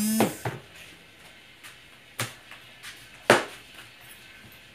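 Kitchen knife chopping through a slice of pumpkin onto the table: a few separate sharp chops, the loudest a little over three seconds in, with a short squeak right at the start.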